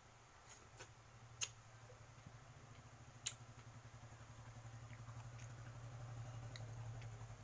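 Quiet eating by hand at a table: a few sharp clicks and taps from fingers and dishes in the first few seconds, over a low steady hum that grows louder in the second half.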